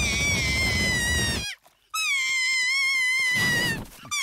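Cartoon baby wailing: two long, high-pitched cries, the second starting about two seconds in, with a noisy rumble beneath the first.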